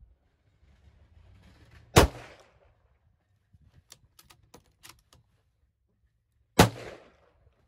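Two rifle shots from a scoped bolt-action rifle, about four and a half seconds apart, the first about two seconds in and the second near the end, each a sharp crack with a short decaying tail. Between them, a quick run of small clicks and clacks as the bolt is worked to eject the spent case and chamber the next round.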